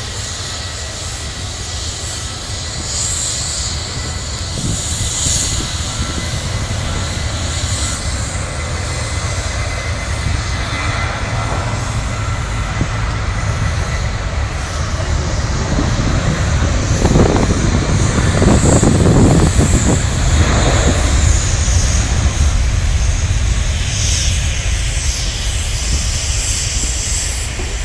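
Boeing 737-700's CFM56 turbofan jet engines at takeoff power, a steady loud noise with deep rumble that grows to a peak about two thirds of the way through, then eases a little.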